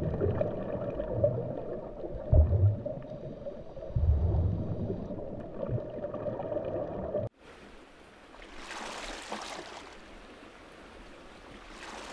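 Water sound effects for a rowing boat. A dense, rumbling stretch with low thuds cuts off abruptly about seven seconds in. Then comes softer running water with two swells of splashing from the oars, one about a second and a half later and one near the end.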